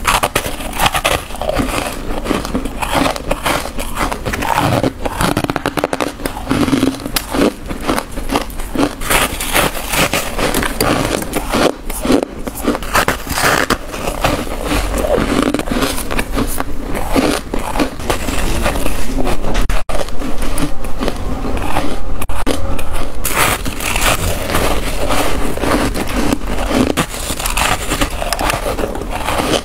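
Close-miked biting and chewing of chunks of freezer frost: rapid, irregular crisp crunches and crackles, loudest about two-thirds of the way through.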